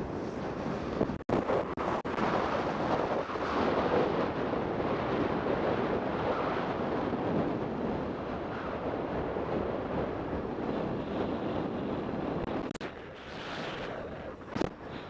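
Wind rushing over the microphone of a camera mounted by the front wheel of a moving DFxl velomobile, mixed with tyre noise on asphalt. A couple of brief knocks come near the end.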